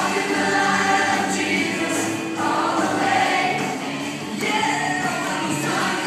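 A choir singing a gospel song, several voices together and continuous.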